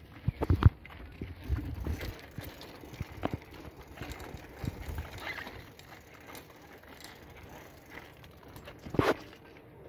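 Bicycle ridden over a dirt road, rattling and clunking over the bumps. A cluster of sharp knocks comes about half a second in, and another loud knock near the end.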